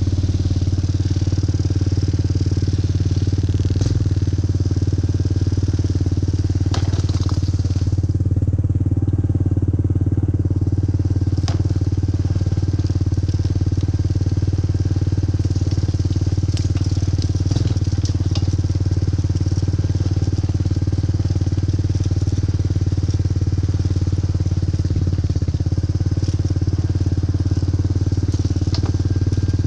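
Four-wheeler (ATV) engine running at a steady, unchanging pitch, with a few brief clicks and rattles.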